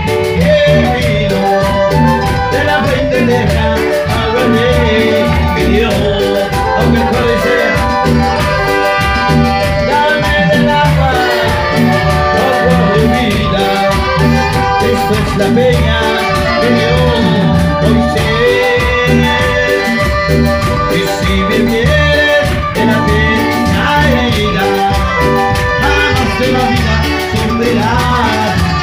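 Live band playing upbeat Latin-style music with a steady beat on congas, horns and keyboards, with a man singing into a microphone over it.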